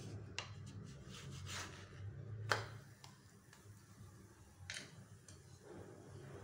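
Faint scrapes and taps of a spatula on a nonstick dosa tawa as a pancake is flipped, with one sharper tap about two and a half seconds in, over a low steady hum.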